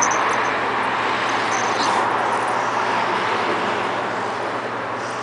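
Steady hum of road traffic, slowly easing off toward the end.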